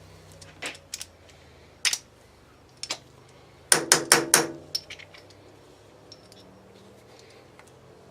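Scattered metallic clicks, then four sharp metallic knocks in quick succession about four seconds in, from a jammed wrench being handled and knocked.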